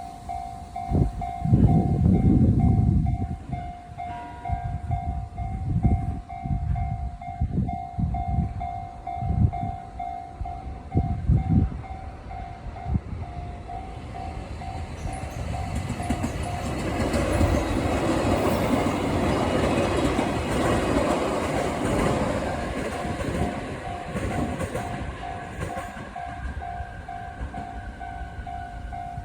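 A Japanese level-crossing warning bell dings steadily and evenly while a train passes over the crossing. Heavy wheel clunks come through during the first half, then a broader, louder rush of passing train noise builds in the second half.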